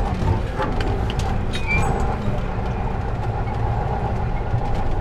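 Heavy truck's engine running steadily as the truck drives slowly, heard from inside the cab, with scattered rattles and knocks from the cab.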